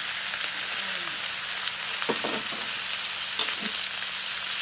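Washed paku remudang fern shoots sizzling in hot oil with fried shallots, garlic, chilli and belacan, a steady frying hiss. A few short scrapes of the spatula stirring the pan about two seconds in and again past three seconds.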